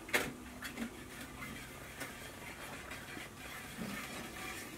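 Metal whisk working milk and sugar in a plastic mixing bowl: a light knock at the start, then soft, irregular scratching and swishing as the sugar is whisked in to dissolve.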